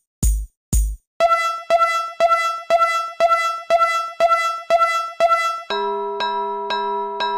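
Electronic synthesizer music on a steady beat of about two pulses a second. A drum hit gives way about a second in to a repeating bell-like synth ding, and near the end a sustained chord pulses on the same beat.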